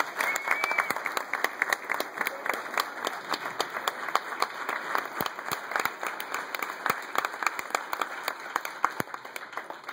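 Audience applauding: many hands clapping, thinning out near the end.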